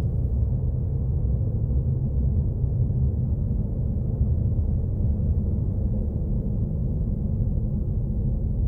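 A steady, low ambient drone with no melody or beat, held evenly throughout.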